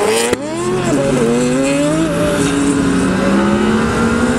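Racing engines accelerating hard down a quarter-mile drag strip: the revs climb, dip at gear changes, then climb again.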